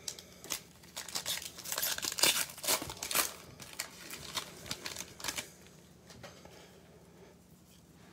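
Foil wrapper of a 2021 Prizm baseball cello pack crinkling and tearing as it is ripped open by hand. The crackling stops about five and a half seconds in.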